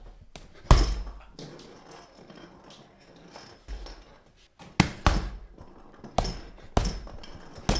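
Fists punching a heavy punching bag: about eight dull thumps at uneven intervals, the first one loudest and a quick cluster of hits in the second half.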